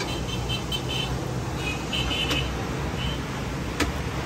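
Steady low rumble of road traffic, with faint high chirps in the first half and a single sharp click near the end.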